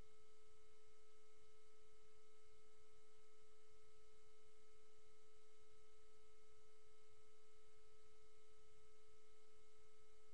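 A faint, steady electronic tone at one unchanging pitch, with fainter overtones above it.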